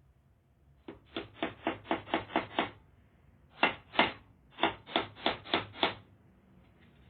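Hammer driving nails into wood: a run of about eight quick blows, a short pause, two louder single blows, then about five more quick blows.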